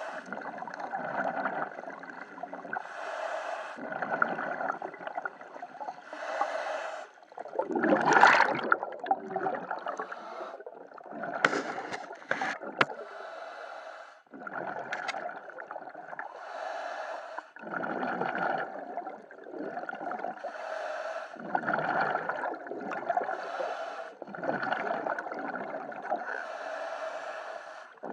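A scuba diver breathing through a regulator underwater: a hissing inhale, then a gurgling rush of exhaled bubbles, repeating every two to four seconds. The loudest bubble rush comes about eight seconds in, and a few sharp clicks come around eleven to thirteen seconds.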